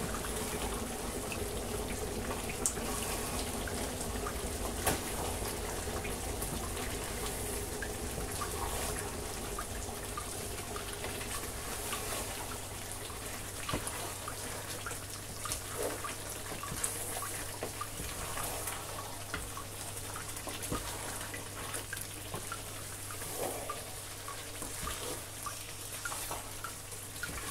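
A wooden spoon stirring a thick egusi soup in a large pot: wet, sloppy stirring with scattered light knocks of the spoon against the pot, over a steady hiss.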